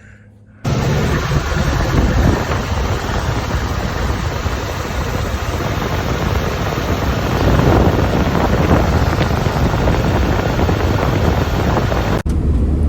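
Loud, steady rushing wind noise buffeting the microphone, with a low rumble. It starts abruptly under a second in and cuts off near the end.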